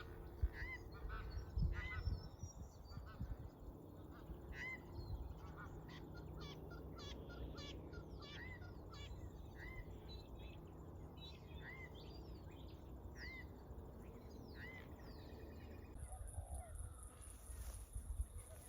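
Birds calling: a short arched call repeated every second or so, mixed with other chirps and clicks over a low rumble. A high steady whine comes in near the end.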